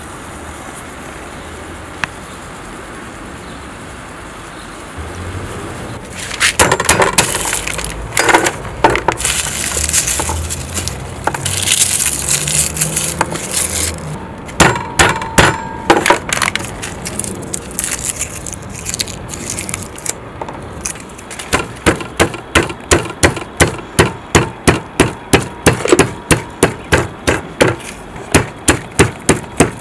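Papery crackling and clicking as garlic cloves are peeled on a wooden board, then, from about two-thirds of the way in, a pestle pounding garlic and a roasted hot pepper in a stone mortar with sharp, regular strikes, about two to three a second.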